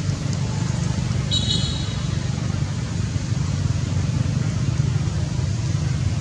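A steady low rumble under a faint hiss, with one brief high-pitched call lasting about half a second around a second and a half in.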